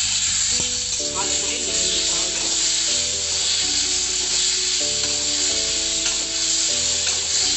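Tomato pieces sizzling steadily in hot oil in a steel kadai while they are stirred, over background music with a slow, stepping melody.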